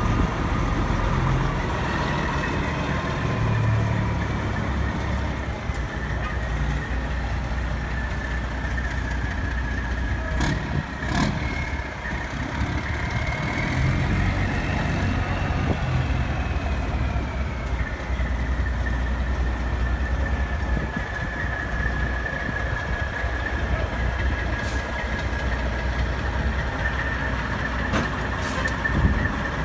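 Heavy diesel semi trucks idling and running at low speed while the tractor is maneuvered onto the trailer. A high thin whine rises slightly midway and then levels off, and a few sharp clicks come through about ten seconds in and again near the end.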